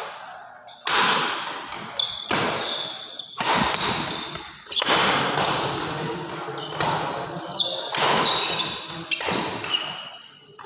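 Badminton doubles rally: rackets striking the shuttlecock about once every second or so, each hit sharp and echoing in the hall, with short high squeaks of shoes on the wooden court between shots.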